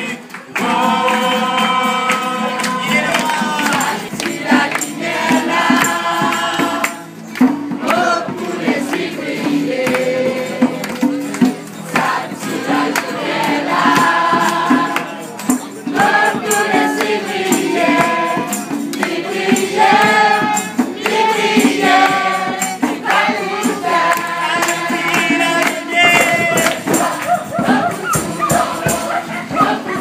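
A group singing a Christian worship song together to strummed acoustic guitars, with a sharp percussive beat of claps or tambourine hits.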